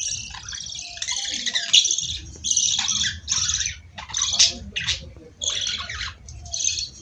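Budgerigars chattering and warbling in quick, high-pitched bursts of chirps and squawks, one run of calls after another.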